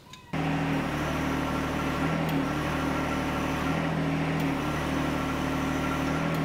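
John Deere 1025R compact tractor's three-cylinder diesel running steadily, cutting in suddenly a moment in. Its note dips slightly a few times, as the engine takes the load of the hydraulic side-link cylinder being worked.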